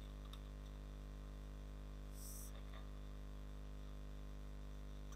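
Steady low electrical mains hum, with a faint click about a third of a second in and a brief high hiss about two seconds in.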